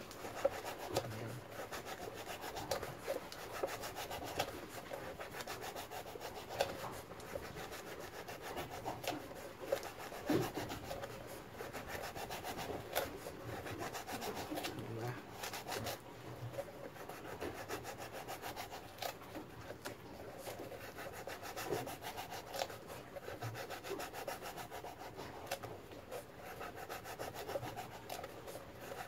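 Knife blade carving a groove into a round fishing float: a continuous rasping scrape, thick with small clicks, with a few sharper snaps scattered through.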